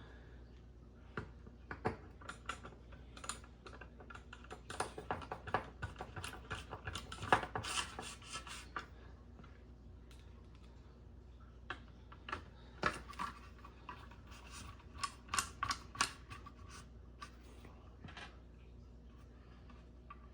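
Small clicks, taps and scrapes of a ceiling fan blade and its metal blade iron being handled and fitted together, in two busy spells with a quieter gap between them.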